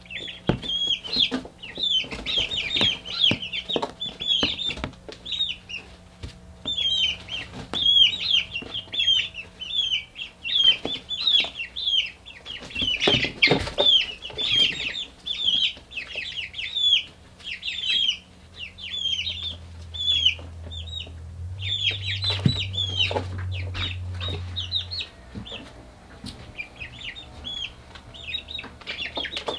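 Young chickens peeping over and over: short, high, falling calls in quick runs, with scattered light taps and a low steady hum underneath.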